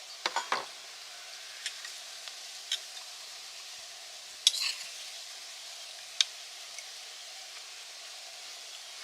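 Steak sizzling over a wood fire: a steady hiss broken by sharp pops, three close together in the first second and a louder one about four and a half seconds in.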